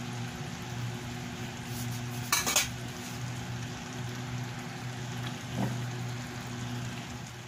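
Metal spatula stirring vegetables in a stainless steel wok, clinking and scraping against the pan briefly about two and a half seconds in and lightly again later, over a steady low frying sizzle and a faint hum.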